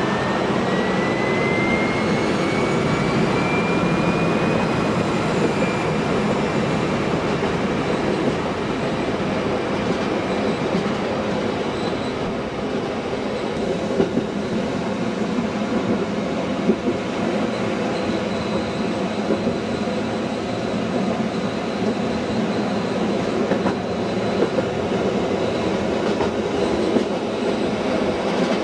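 A train running on rails, with a steady rumble and the clickety-clack of wheels over rail joints. A thin whine rises in pitch over the first few seconds.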